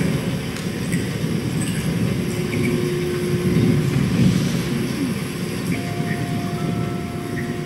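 Concert band playing a quiet, low passage: a dark rumbling bed of sound with a few long held notes coming in over it.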